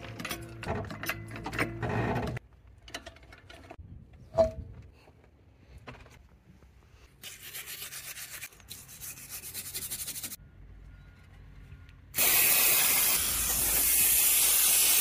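Scraping and rubbing on a rusty brake caliper in two stretches, followed about twelve seconds in by a loud, steady hiss as a spray jet is played over the caliper to the end.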